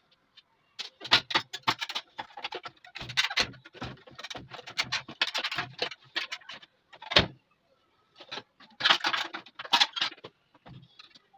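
Irregular clinks, clicks and rattles of metal sewing-machine parts being handled and worked on during servicing, with one sharp knock about seven seconds in.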